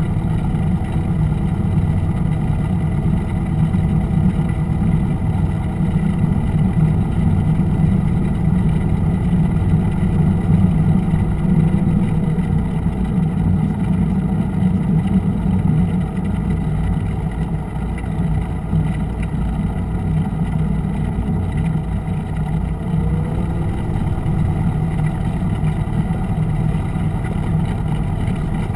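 Single-engine Cessna's piston engine and propeller running at low power as the plane taxis, a steady drone. It eases slightly past the halfway point.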